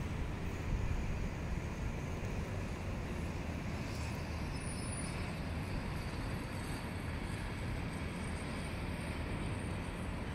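Steady low rumble of city traffic heard from high above the street, with no distinct events standing out.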